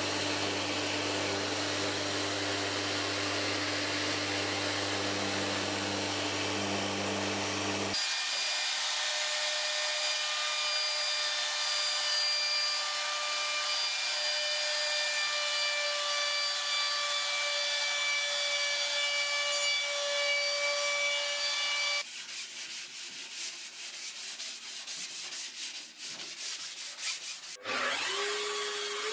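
Festool electric sander running against a plywood edge, with a steady hum. About eight seconds in, the sound switches abruptly to a higher steady whine of a router rounding over the plywood edge. Near the end it gives way to a quieter run of rapid clicks and knocks.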